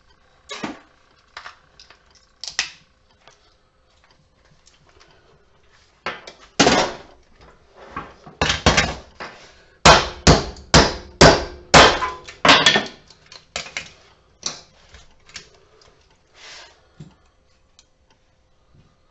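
A hammer striking a small transformer on a workbench to break it apart: a few light knocks, then a run of hard, sharp blows about two a second, then lighter knocks as it eases off.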